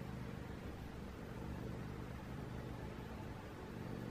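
Steady low hum and hiss of background noise, with no distinct event.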